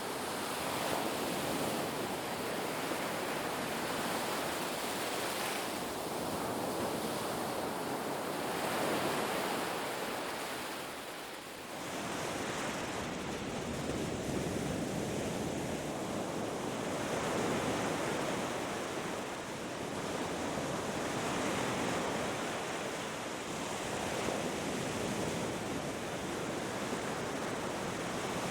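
Ocean surf washing onto a beach: a continuous rush that swells and eases every few seconds, briefly dipping about eleven seconds in.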